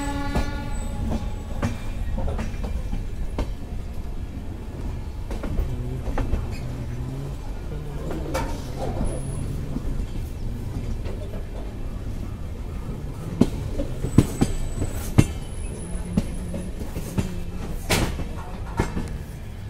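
Passenger train coaches rolling over the yard tracks, heard from aboard at the open door: a steady low rumble of wheels on rail, with sharp clacks as the wheels cross rail joints and points, several of them in the later seconds. A couple of brief thin high squeaks from the wheels come in among the clacks.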